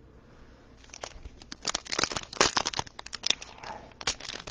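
Foil trading-card pack wrapper crinkling and tearing as it is handled and opened by hand. The rustling starts about a second in and keeps up as a dense run of crackles.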